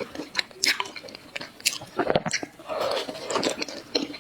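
Close-miked eating: a person biting and chewing food, with many short sharp mouth clicks and smacks.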